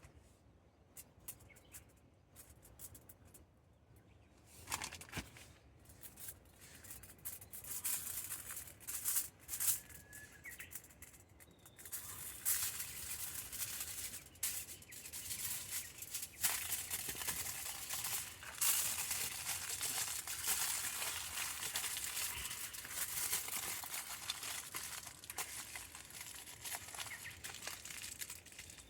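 Campfire crackling, with scattered clicks and rustling at first, then a dense, steady crackle from about halfway through.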